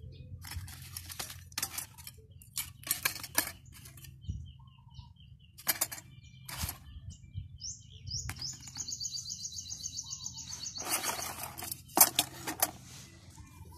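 Engine piston rings and their plastic packaging being handled by hand: scattered clicks, light metal clinks and rustles, the sharpest about twelve seconds in. A bird sings over them, first a run of short repeated chirps, then a fast high trill about two-thirds of the way through, above a steady low hum.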